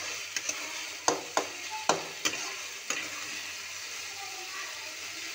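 Keema with boiled potato pieces sizzling steadily in hot oil in a metal kadhai. A metal spatula stirs it, with several sharp knocks and scrapes against the pan between about one and three seconds in.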